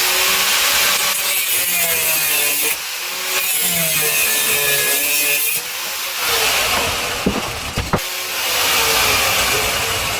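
Power tool cutting a metal mounting bolt down shorter: a loud, continuous grinding-cutting noise with a wavering whine, briefly easing off a few times.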